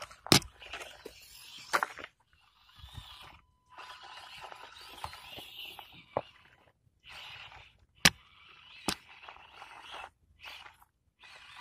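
Small RC crawler driving over rough ground: stretches of scraping and crunching broken by several sharp knocks, two of them loudest, one just after the start and one about eight seconds in.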